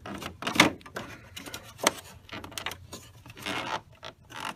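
Rubbing and scraping with a few sharp clicks, about a second apart, as a chrome gauge bezel is pulled off a Victory Vision motorcycle's dashboard, its pins working out of rubber grommets.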